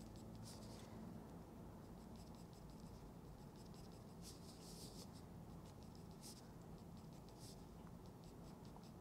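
Faint scratching of a graphite pencil shading on paper, in short irregular strokes.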